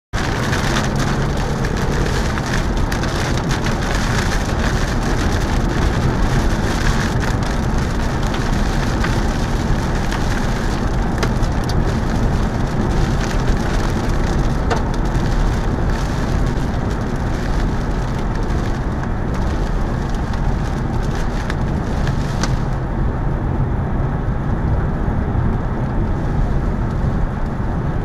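Rain pelting a moving car, heard from inside the cabin: a steady rushing noise with many sharp taps of drops striking the windshield. The higher hiss drops away a little over three-quarters of the way through.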